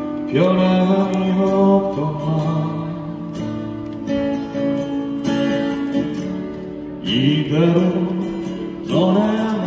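A male voice singing a ballad into a microphone over acoustic guitar, holding long notes that scoop up into pitch about a third of a second in, at about seven and a half seconds and near the end.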